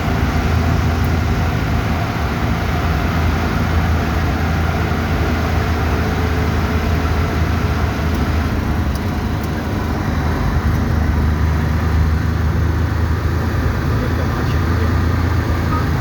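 Steady low rumble of a moving car, engine and road noise running evenly with no sudden changes.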